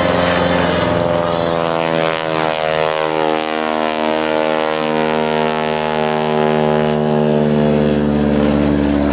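Stearman biplane's radial engine and propeller flying past: a steady drone whose pitch slides downward over several seconds as the plane passes, then holds.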